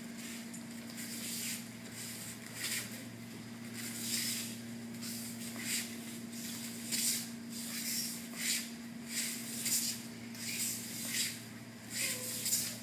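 Cotton martial-arts training uniforms rustling and swishing, with bare feet brushing the mat, as two people move through a technique: short brushing bursts one or two times a second over a steady low hum.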